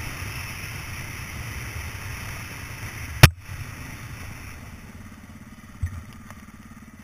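Off-road motorcycle engine running while riding over a rough dirt trail. A single sharp knock comes about three seconds in and is the loudest sound. After it the engine is quieter, and a smaller thump follows near the end.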